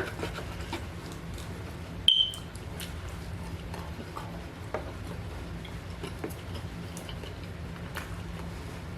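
Quiet eating of lamb chops: small scattered clicks of cutlery and mouth noises over a steady low hum, with one sharp clink that rings briefly about two seconds in.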